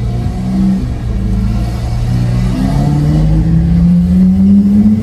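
Lamborghini Aventador SV's V12 through a Capristo exhaust, running loud under way; its note drops about a second in, then climbs steadily as the car accelerates.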